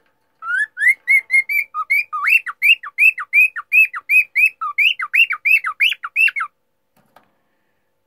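Male cockatiel whistling its song: a quick run of about two dozen short rising-and-falling whistled notes, roughly four a second, that then stops.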